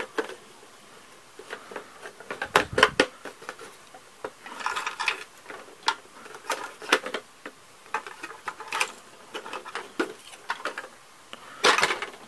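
Hard plastic Playmobil building parts clicking and knocking against each other as a roof piece is pressed and worked onto the wall section, in scattered clusters of sharp clicks every second or two.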